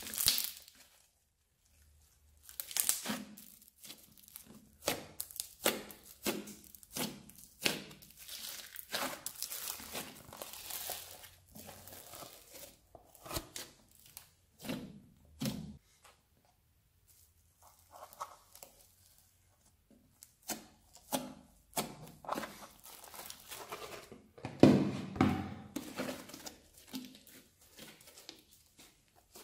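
Hands squeezing, pressing and stretching slime in a plastic box: irregular sticky crackling and popping from air bubbles in the slime, and tearing sounds as it is pulled apart, coming in bursts with a few quiet pauses. The loudest burst comes a few seconds before the end.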